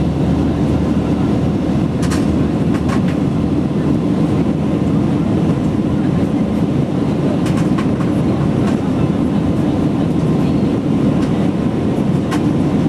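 Steady roar of an Airbus A319's engines and rushing air heard inside the passenger cabin as the jet climbs after take-off, with a few faint clicks.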